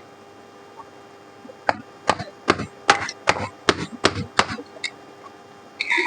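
Hammer blows on a steel chisel cutting through the copper windings of a ceiling fan's stator coil, which rests on a wooden block. About ten sharp strikes a little under half a second apart start a couple of seconds in, and there is one short knock near the end.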